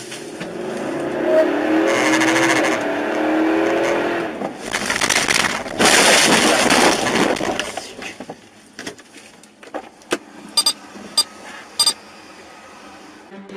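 A car engine rising in pitch as it accelerates for about four seconds. Then come several seconds of loud, rough crashing and scraping noise. A few sharp clicks follow near the end.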